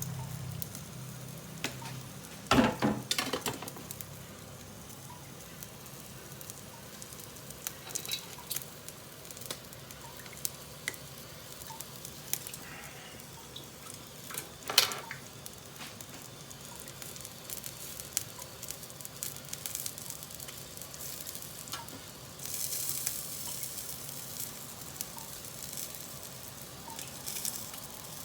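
Yakitori skewers sizzling and crackling on an Iwatani tabletop gas grill, with small pops throughout. Louder bursts come about two and a half seconds in and again about halfway through.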